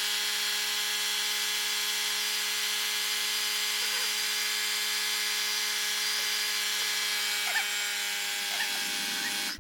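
A motorized air pump runs steadily at an even pitch with a strong airy hiss, inflating a tubeless tire whose tread is cinched by a ratchet strap so the beads seal to the rim. It stops at the end.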